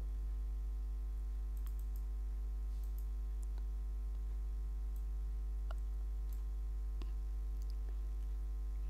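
Steady low mains hum, with about a dozen faint, irregular clicks from a computer in use scattered through it.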